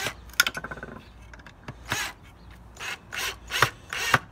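Gloved hands scraping and rubbing across a wooden plank in a series of short strokes, clearing wood shavings from freshly drilled screw holes. A brief whir from a cordless drill comes about half a second in.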